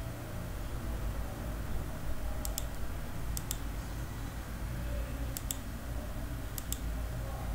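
Computer mouse clicks: four quick press-and-release pairs spread over a few seconds, as points of a circle are placed in a CAD sketch, over a steady low hum.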